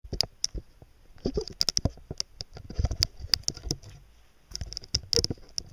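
Rapid, irregular clicks and light taps, bunched in several quick flurries.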